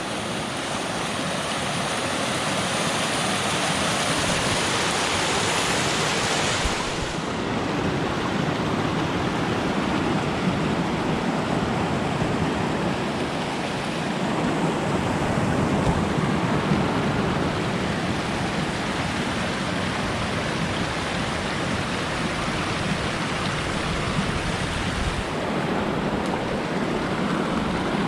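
Steady rush of a mountain stream running over rocks, a loud, even hiss with no other clear events. The sound shifts about seven seconds in and again near the end.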